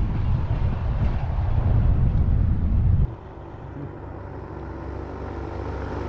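Wind rumbling on a helmet-mounted camera on a paramotor. After a sudden cut about three seconds in, the paramotor's engine drones steadily from a distance.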